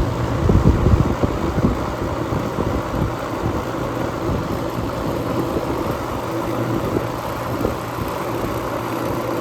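Outdoor central air-conditioner condenser unit running: a steady compressor hum under the rush of its fan. Gusts of the fan's discharge air buffet the microphone, most strongly about half a second to a second and a half in.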